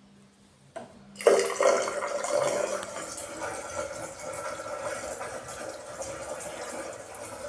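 A faucet turned on with a brief click, water gushing suddenly about a second in and running steadily into the sink basin and down the drain through a newly replaced plastic P-trap, a flow test of the new trap for leaks.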